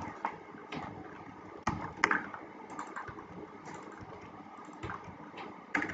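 Computer keyboard keys pressed in scattered single clicks, a second or so apart, during text editing.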